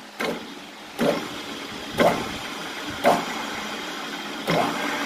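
Grizzly G4003G metal lathe jogged in short bursts: the spindle motor kicks on five times, about once a second, each a sharp start settling into a steady hum as the chuck turns a little.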